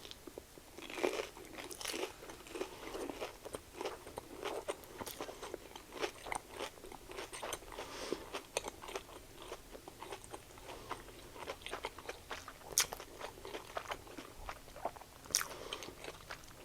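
Close-miked biting and chewing of a Korean corn dog with a crisp panko-crumb batter coating: an irregular run of crunches and crackles, with a few sharper bites, the first near the start and others later on.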